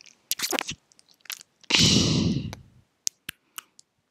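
A loud, breathy burst of mouth and breath noise close to a headset microphone about two seconds in, with smaller mouth noises before it and three sharp clicks after it.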